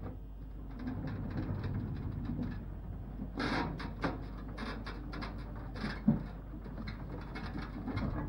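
Library compact mobile shelving, hand-wheel-driven stacks rolling along floor rails: a low rumble, then clunks and clicks and a sharp thud about six seconds in.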